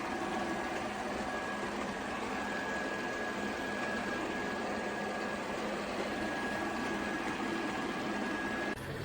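Shark robot vacuum running: a steady motor whir with a faint high whine, which shifts and dips briefly near the end.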